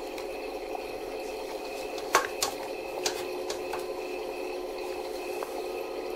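A few sharp plastic clicks and taps, the first the loudest, as gloved hands handle a Samsung dryer's plastic front bulkhead and its drum support rollers, over a steady background hum.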